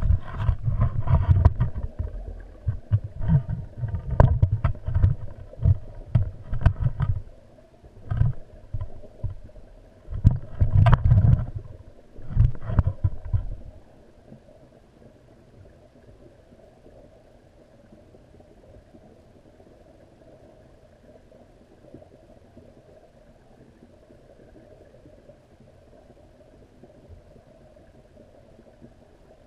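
Underwater camera being handled and shifted in a pond: loud low rumbles with knocks and clicks for the first half. After about 14 seconds it settles, and only a faint steady underwater hum remains.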